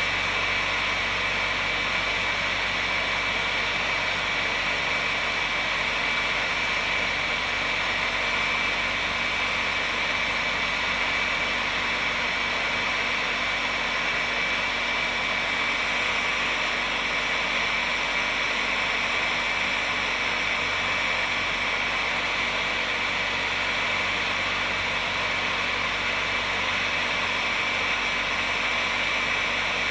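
Heat gun blowing steadily, a constant rush of hot air with a thin, steady high whine over it, while it melts a plastic welding rod into a crack in a polyethylene kayak hull.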